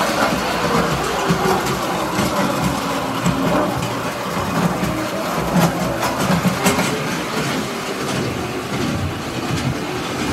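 Toy electric trolley car running on three-rail tinplate track: a steady motor hum and rumble of metal wheels, with a few sharp clicks along the way.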